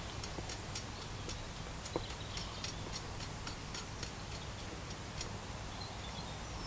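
Coal forge fire crackling: irregular sharp ticks and pops, a few a second, over a steady low hum from the forge's air blower.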